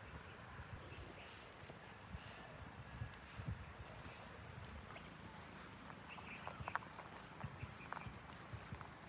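Insects calling in the open air: a high, steady trill that pulses in even beats for the first few seconds, then gives way to a higher steady tone. A few short, sharp chirps come in the second half.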